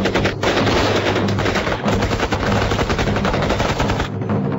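Gunfire in a night gun battle: many rapid, overlapping shots that stop shortly before the end.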